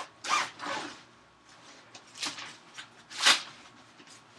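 Tent fabric being handled: four short rustles, the loudest about three seconds in.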